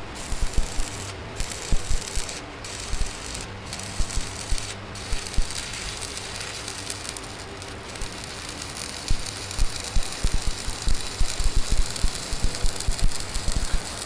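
Arc welding: a steady crackling sizzle with many sharp pops, broken off briefly a few times in the first seconds. The pops come thicker from about nine seconds in.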